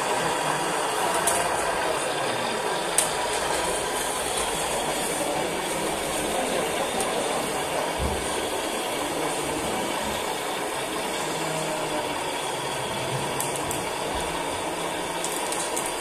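Small electric motors, hydraulic pumps and gearing of radio-controlled scale excavators and trucks running, a steady mechanical whirring with a faint steady whine and a few sharp clicks.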